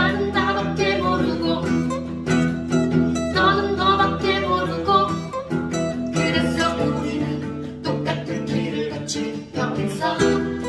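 Acoustic guitar playing a song, with plucked notes over sustained chords.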